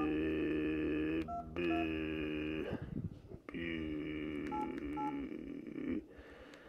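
Keypad beeps from a Samsung SCH-U320 flip phone as its number keys are pressed to type a text: a handful of short two-tone beeps. Under them, a louder steady humming tone held a few seconds at a time, breaking off about a second in and again near the middle, and stopping shortly before the end.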